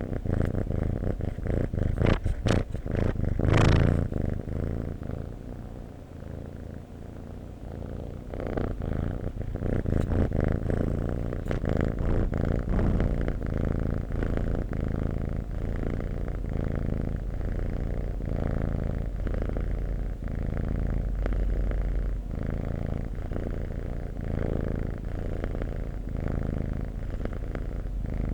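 Domestic cat purring close to the microphone, a low, steady rumble that swells and fades in a regular rhythm with its breathing. A few brief louder noises come about two to four seconds in.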